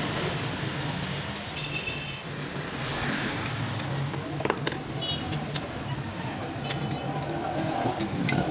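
Steady background traffic rumble, with a few sharp metallic clicks and taps as a screwdriver works at an angle grinder's gear housing, about halfway through and again near the end.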